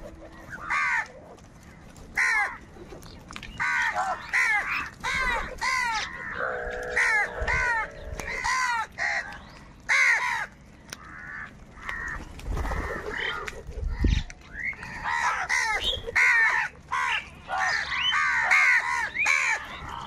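A flock of house crows cawing, many harsh calls overlapping one after another, growing busier in the second half.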